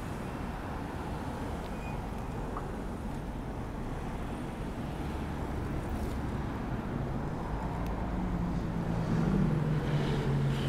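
Road traffic noise, a steady low rumble of cars. Near the end the hum of a nearby motor vehicle's engine grows louder.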